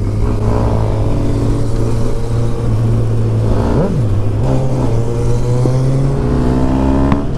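Motorcycle engine running under way, with wind noise on the microphone. About four seconds in the engine note briefly rises and falls, then settles at a slightly higher pitch.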